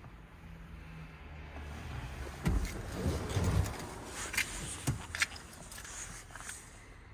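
Handling and movement noises in a car cabin over a low hum: a thump about two and a half seconds in, a short rumble, then a few sharp clicks.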